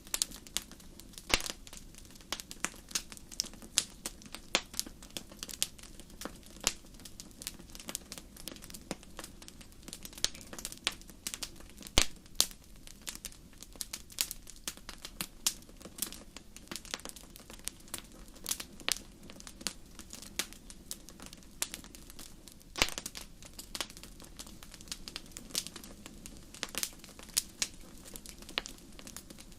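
Wood fire burning in a fireplace, crackling with irregular sharp pops, several a second, over a faint steady hiss, with louder pops about 1 s in, about 12 s in and about 23 s in.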